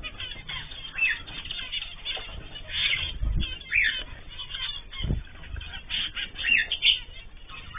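Small cage birds (cockatiels, zebra finches and canaries) chirping and calling over one another in short, repeated calls, with wing flutters, and two low thumps about three and five seconds in.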